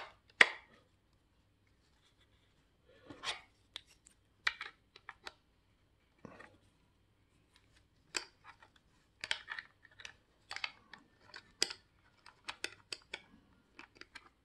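Scattered small plastic clicks and scrapes as a 9-volt battery is seated in the battery compartment of a Lomvum handheld wall detector and the compartment cover is pushed shut. The clicks come thicker in the second half.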